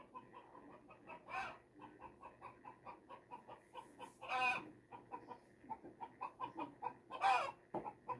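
Silver Laced Wyandotte chickens clucking in a steady, rapid run of about four to five clucks a second, broken by three louder, longer calls: about a second in, about halfway, and near the end.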